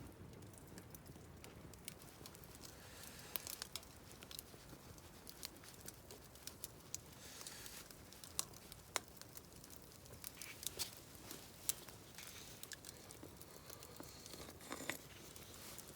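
Scattered light clicks and taps with a few brief rustles, low in level.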